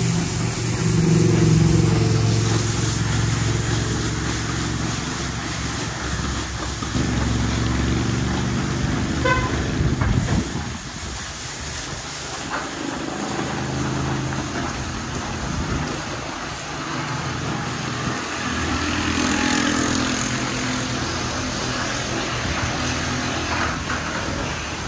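Water Wizard automatic car wash machine running through a wash cycle: a steady motor and pump hum under the hiss of water spray, with a brief beep-like tone about nine seconds in and a shift in the hum shortly after.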